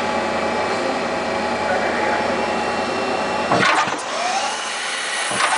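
Ergomat TBA 60 CNC lathe running while machining a plastic fitting: a steady machine noise with several steady tones, and two short sweeping sounds, one about three and a half seconds in and one near the end.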